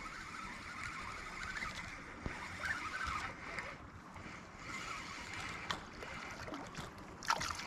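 Spinning reel being cranked steadily to bring in a hooked goldeye, a faint continuous whir with a few light ticks.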